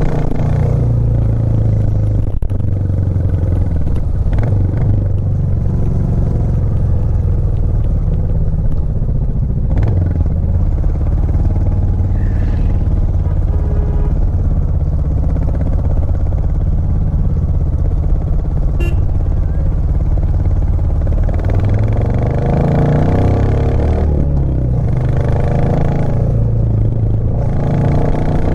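Royal Enfield Classic 350's single-cylinder engine running steadily while the motorcycle is ridden uphill. About three-quarters of the way through, the engine note drops and climbs again.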